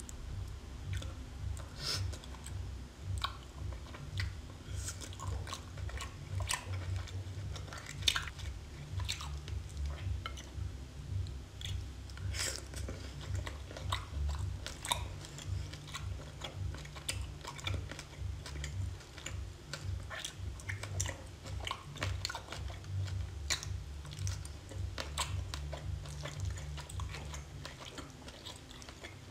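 Close-up chewing and biting of raw seafood, with many irregular wet clicks and crunches between bites.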